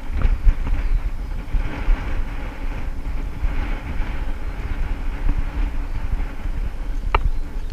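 Wind buffeting the microphone in a steady low rumble, over the crunch of walking footsteps on a stony path. A single sharp click about seven seconds in.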